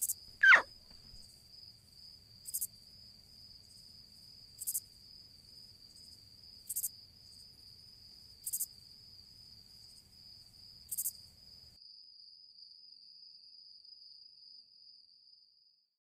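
Crickets chirping as a sound effect: a faint, steady high trill with a brighter chirp about every two seconds, stopping shortly before the end. A quick falling whistle-like glide sounds about half a second in.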